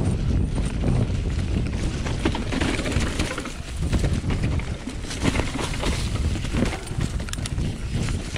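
Specialized Enduro Expert 29 full-suspension mountain bike descending a leaf-covered dirt trail: tyres crunching through dry leaves and dirt, and the bike clattering over bumps in quick irregular knocks over a steady low rumble.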